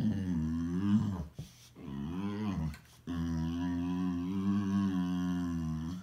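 Boxer dog making low, drawn-out vocal moans: one trails off about a second in, a short one follows, then a long held one of about three seconds.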